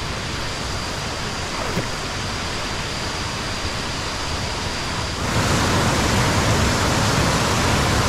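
Steady rush of waterfall cascades. About five seconds in it becomes louder and fuller.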